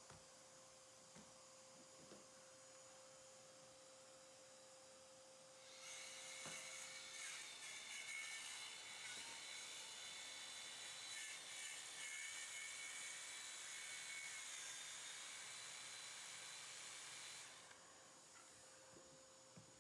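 A faint electric power tool motor runs with a high whine and hiss for about twelve seconds, starting about six seconds in and cutting off near the end. Before and after it there is only a faint steady hum.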